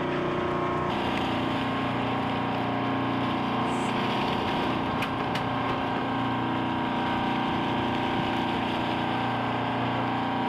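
Sportfishing boat's engine running steadily, a constant hum over the wash of the sea, with a couple of sharp clicks about halfway.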